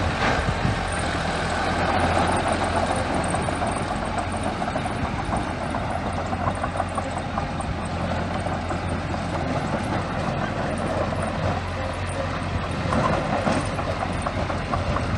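Small bulldozer's diesel engine running steadily, a low hum with a continuous rattle of metal over it.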